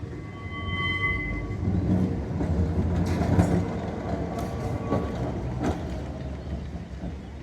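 Kirnitzschtal tramway railcar moving over the rails: a low rumble with scattered clicks and knocks, swelling about two to four seconds in. A short steady high tone sounds for about a second near the start.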